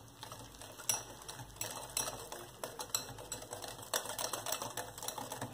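Wire whisk mixing cake batter in a glass bowl, its wires clicking and scraping against the glass in quick, irregular taps.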